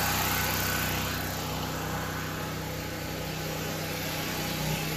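Westinghouse WGen 5300 portable generator's gasoline engine running at a steady speed, growing a little fainter over the first few seconds.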